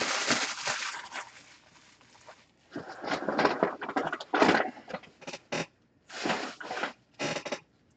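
Plastic shrink wrap being crumpled and handled, crinkling in irregular bursts with short pauses between them.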